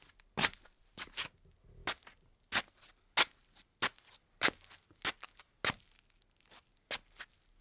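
Slippers shuffling on a tile floor: a slow, even walk of scuffing steps, about one every two-thirds of a second, with a short pause near the end.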